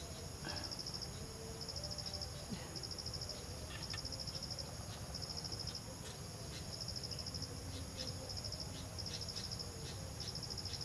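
Forest insects such as crickets or cicadas chirping in short, rapidly pulsed trains about once a second, over a steady high-pitched insect drone.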